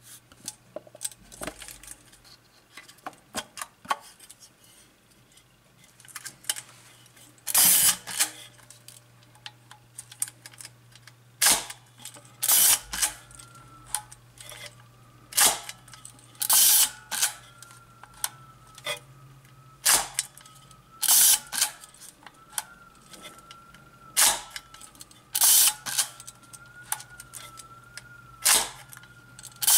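Kiev 6C medium-format SLR camera being worked by hand: the shutter fires with loud mechanical clacks, mostly in pairs about a second apart, repeated about every four seconds, with lighter clicks of the shutter-speed dial and controls between them.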